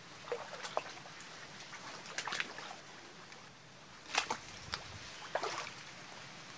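Footsteps wading through shallow floodwater: a series of irregular sloshes and splashes, the loudest about four seconds in.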